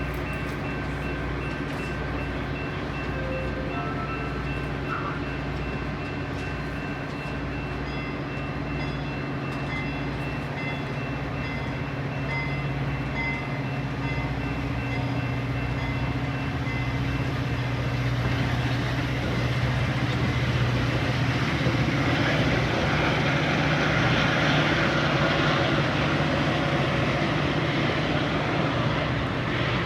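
Metra commuter train's diesel locomotive running with a steady low drone, louder and with more rumble and hiss from about twenty seconds in. A faint high tone pulses on and off through the first half.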